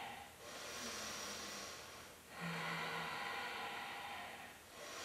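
A woman breathing slowly and audibly while holding a yoga balance pose: two long breaths of about two seconds each with a short pause between, and a third beginning near the end.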